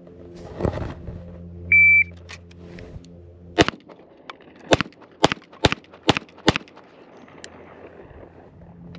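A shot timer's start beep, then six 9mm pistol shots from a Springfield Armory Prodigy fired from the draw in a Bill Drill. The first shot comes almost two seconds after the beep and the other five follow in quick succession, about half a second apart.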